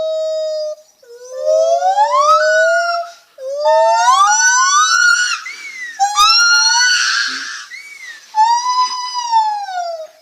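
Lar gibbon calling. A long steady hoot is followed by three rising whooping notes that slide sharply up in pitch and grow shriller. A final note rises and falls near the end.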